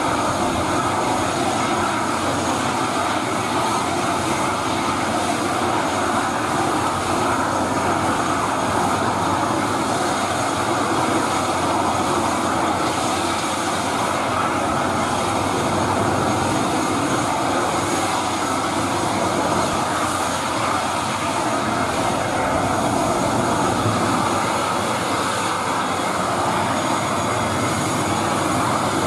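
ATR 72-600 turboprop engine running steadily while the aircraft stands parked on the apron, a constant even drone with no change in pitch or level.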